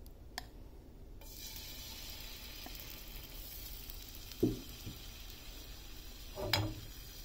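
Batter sizzling as it is poured onto a hot ghee-greased tawa. The steady hiss starts suddenly about a second in, and two brief dull knocks come about four and six and a half seconds in.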